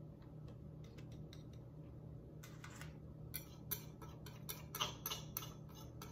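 A metal utensil scraping and tapping against a small ceramic bowl to knock cornstarch out into a pot: a run of sharp, irregular clicks that starts about two and a half seconds in, over a steady low hum.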